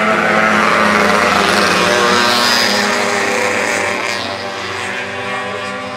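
A motor vehicle going past close by, its engine and tyre noise loudest in the first two seconds and then slowly fading.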